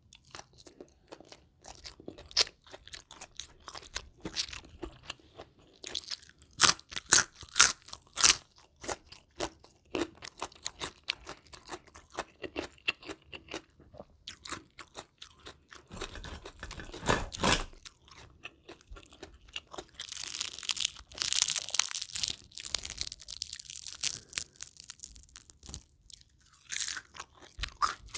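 Close-miked biting and chewing of crispy battered deep-fried chicken: irregular crackling crunches between quieter chewing, with a dense run of loud crunching about two-thirds of the way through.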